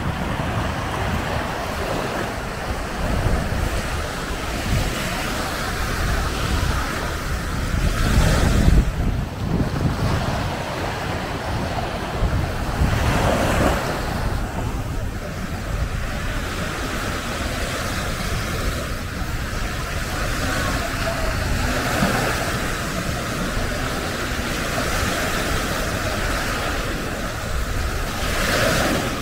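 Sea waves washing onto a beach, with a louder surge now and then, the strongest about nine seconds in. Wind rumbles on the microphone throughout.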